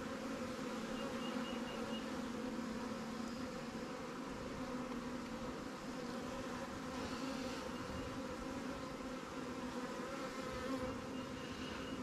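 Honey bees buzzing around an open hive and a frame of comb, a steady hum of many wings with a low drone and overtones above it.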